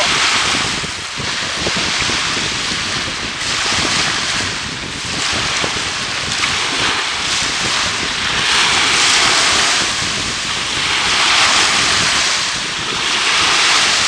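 Sea surf washing in, swelling and fading every few seconds, with wind buffeting the microphone.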